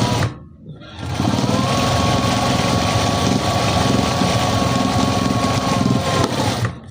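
Sewing machine stitching a shirt's hem at full speed: it pauses briefly just after the start, then runs steadily with a rapid needle rhythm and a steady motor whine, and stops near the end.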